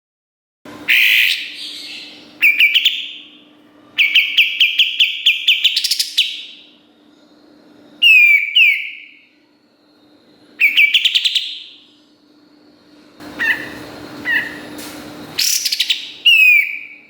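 Kapas tembak bulbul singing loud phrases: quick runs of sharp repeated notes, about five a second, and short downward-slurred whistles, separated by brief pauses. A faint steady low hum runs beneath.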